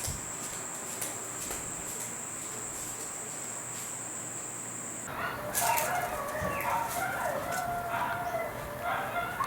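A steady high whine that cuts off about halfway, followed by a run of wavering, pitched animal calls.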